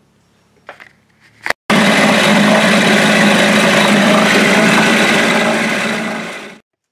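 Evinrude 3.3 hp single-cylinder two-stroke outboard motor running steadily and loud in a test tub of water. It starts abruptly about two seconds in and stops suddenly just before the end.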